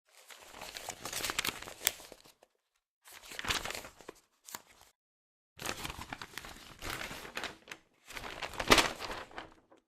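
Newspaper pages being flipped: paper rustling in several separate bursts with short silent gaps, with a sharp snap of a page near the end.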